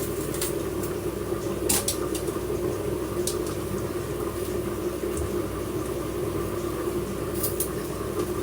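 Pot of food simmering on the stove: a steady hum and bubble, with a few light clicks here and there.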